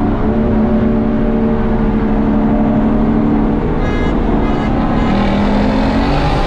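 Car engine running while driving: its note holds steady, drops about four seconds in, then climbs again. Two brief buzzing tones sound around the same moment.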